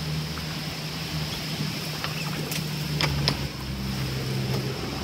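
Small electric utility pump running with a steady low hum as it pumps floodwater out through a garden hose, under the hiss of heavy rain, with a few sharp ticks about two to three seconds in.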